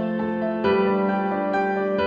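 Instrumental background music: held keyboard-like notes that change to a new chord a little over half a second in.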